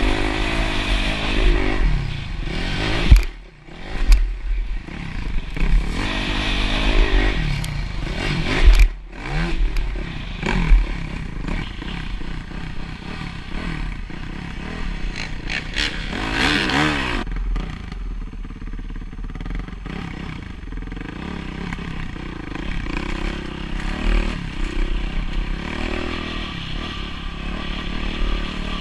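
Dirt bike engine revving up and down over and over as it is ridden, heard from the rider's helmet camera. Several loud knocks and clatters come in the first ten seconds or so.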